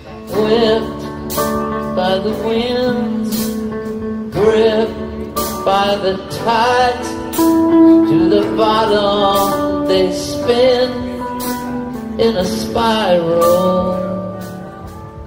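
Live band music from a string band: a held bass note under a sliding, bending lead melody, with regular drum or cymbal hits.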